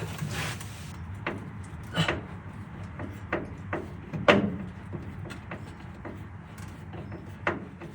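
Irregular clicks and taps of a spanner working the last bolt out of a Porsche 356's passenger grab handle, with two louder knocks about two and four seconds in.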